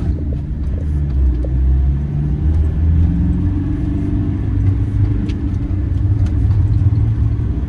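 Campervan engine and road noise heard from inside the cab as the van pulls away and accelerates: the sound builds over the first second, the engine note rises once or twice, then it runs on steadily.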